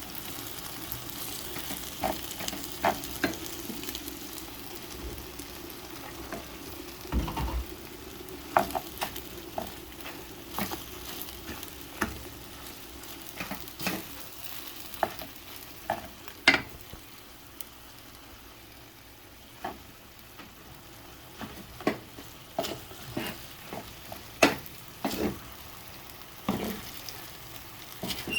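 Food sizzling as it fries in a pan while being stirred, with frequent sharp clicks and knocks of the utensil against the pan. The sizzle eases off a little just past the middle.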